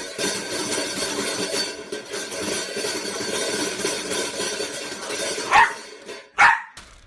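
A dog barking twice, two loud barks a little under a second apart near the end, over a steady busy background noise.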